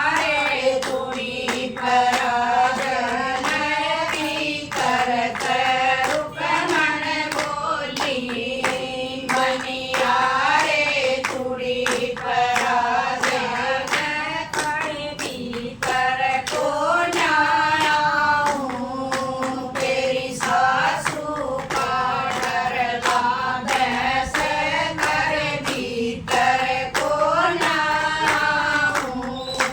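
Group of women singing a Haryanvi folk song together in unison, kept in time by steady hand-clapping about twice a second.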